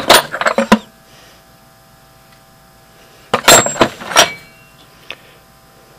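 Steel lathe boring bars and cutting bits clinking and rattling against each other as a hand sorts through them in a wooden box, in two short bursts, the second about three seconds in, with a brief metallic ring.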